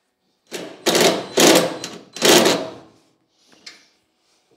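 Cordless drill driving a screw in three short bursts, followed by a light click.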